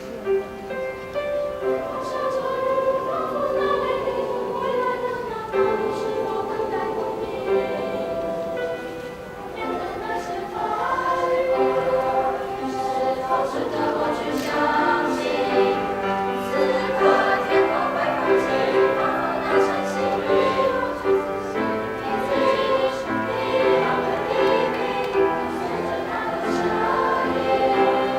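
A high-school student choir singing a song in harmony with long, held notes. The singing swells fuller and louder about ten seconds in.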